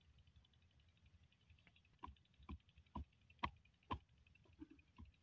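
Open spanner knocking against the metal flange of a buried borewell pipe, a run of about seven dull knocks roughly two a second starting about two seconds in, over a faint, fast, high ticking.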